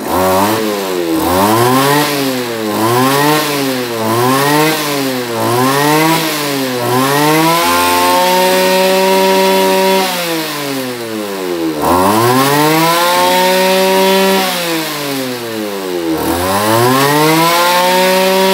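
Kawasaki TJ27 27 cc two-stroke brush cutter engine, blade spinning, revved in quick throttle blips about once a second. It is then held at full revs for a few seconds at a time, dropping back to idle twice and rising again near the end. The engine picks up very quickly, showing sharp throttle response.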